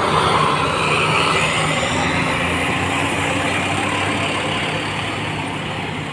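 Tour bus engine running steadily with road noise, slowly getting quieter.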